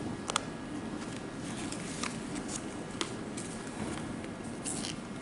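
Diamond painting work: a few scattered light clicks and taps as resin drills are picked up with a drill pen and pressed onto the canvas, over a steady hiss.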